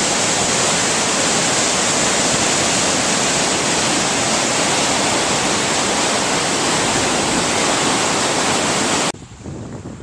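Steady, loud rush of falling or fast-flowing water, as from a waterfall, cutting off abruptly about nine seconds in to faint wind noise.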